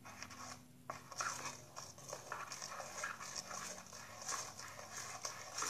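A flour and liquid-detergent slime mixture being stirred: a quick, irregular run of short stirring strokes.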